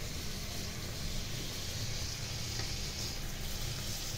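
Steady background hiss with a low rumble underneath, even throughout, with no distinct events.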